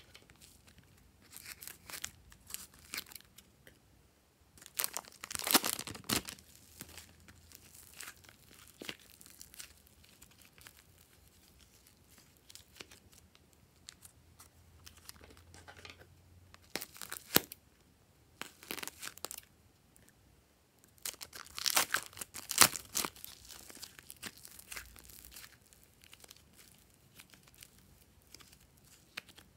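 Hands working slime and bead-filled floam: crackling, sticky handling sounds as it is squeezed from plastic tubs and pulled, in several bursts with quiet gaps, the two loudest about a fifth and three-quarters of the way through.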